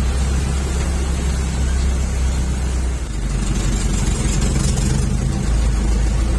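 Diesel engine of a Toyota FJ40 running steadily with a low drone, which dips briefly and shifts in tone about halfway through.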